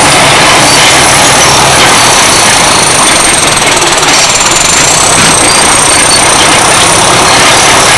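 Cat D7 bulldozer's turbocharged diesel engine running hard under load, with a high, thin turbocharger whistle over the loud engine noise. The whistle drops in pitch about halfway through and winds back up.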